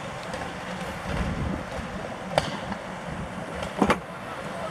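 Passenger coach rolling slowly away on jointed track over a steady rushing noise. Its wheels click sharply over the rail joints, once about two and a half seconds in and then as a quick pair near the end.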